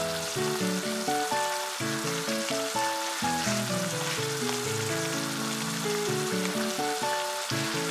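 Thickening soy braising sauce sizzling and bubbling in a frying pan around chicken drumsticks. A steady fine hiss plays under background music with a melody of short notes.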